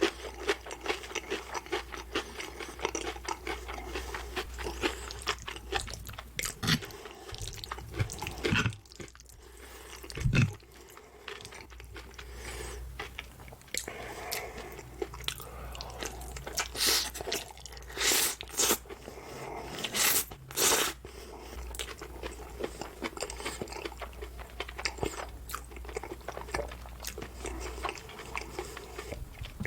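Close-up eating: crunchy bites and chewing of breaded fried pork cutlet, with repeated small crunches throughout and a few louder sharp crunches about two-thirds of the way in. A single low thump about a third of the way in.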